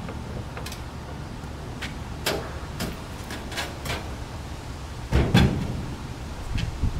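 Long wooden boards knocking and clattering as they are slid and stacked onto a pickup truck's bed, a string of sharp knocks with the loudest thump about five seconds in.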